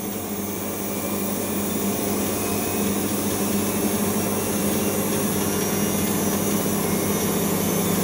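Siemens Serie IQ front-loading washing machine spinning its drum during the final spin, a steady motor whine over the rush of the drum, slowly getting a little louder.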